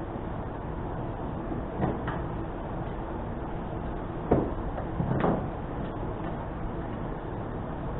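A few knocks and clunks of metal winch parts being handled during disassembly, the sharpest about four seconds in and another cluster a second later, over a steady background noise.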